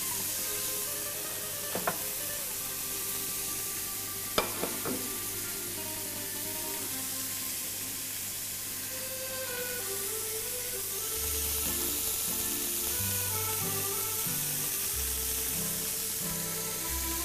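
Meat sizzling on a grill, a steady hiss, under background music whose bass line comes in about eleven seconds in. A couple of sharp clinks sound in the first few seconds.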